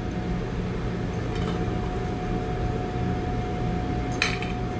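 Light clinks of plates and utensils being handled on a kitchen counter, with one sharper clink about four seconds in, over a steady background hum.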